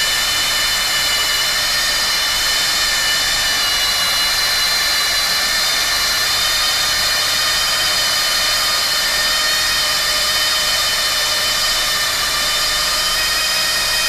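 Automatic plastic welding machine running steadily: a constant high whine of several tones over a hiss.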